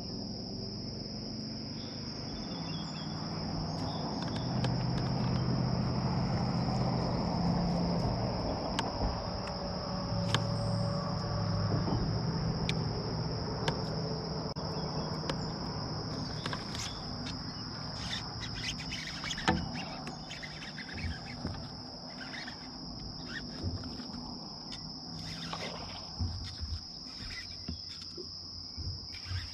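Steady high-pitched drone of insects. A low hum swells from about four seconds in and fades by about twenty, and scattered light clicks and knocks come in the second half.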